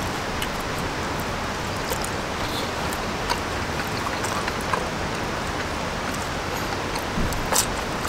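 Wagyu steak sizzling on a hot iron griddle plate over a wood fire: a steady hiss with scattered small crackles and pops, and a couple of louder pops near the end.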